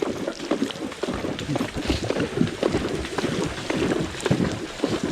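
A Walking Horse's hooves splashing through a shallow, rocky creek at a brisk gait: a dense, irregular run of splashes and sloshing water.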